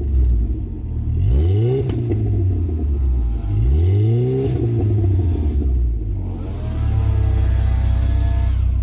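Chevrolet S10 pickup engine, loud through a Flowmaster muffler and side-dump exhaust, starting up and being revved twice, each rev rising and falling. It then climbs again and holds a steady, higher run.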